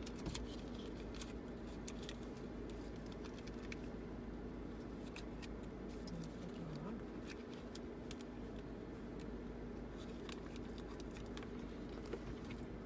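Steady low hum in a car's cabin, with faint scattered clicks and rustles of small objects being handled.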